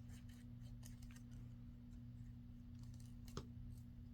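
Faint handling of paper and crafting tools: scattered light clicks and taps, with one sharper click about three and a half seconds in, over a low steady hum.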